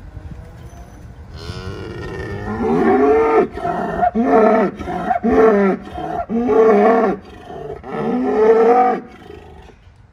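A cow mooing in a string of about six short calls, each rising and falling in pitch, one after another from about two seconds in until about nine seconds in.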